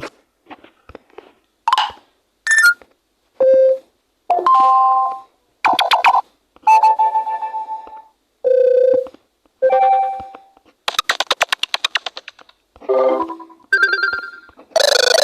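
Android notification and alarm tones from an Aidata Elde 10.1 tablet, played one after another: about a dozen short chimes, beeps and jingles, each a different sound, with brief gaps between them. One tone about halfway through is a fast run of repeated beeps. Faint clicks come before the first tone.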